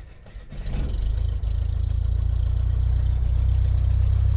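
Propeller-plane engine sound effect: a steady, loud, low engine drone that starts about half a second in.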